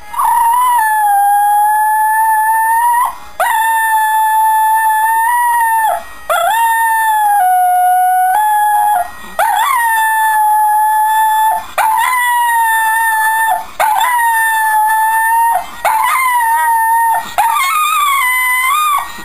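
Shetland sheepdog howling along to TV theme music: a string of about eight long, steady howls, each two to three seconds, with short breaks for breath between them.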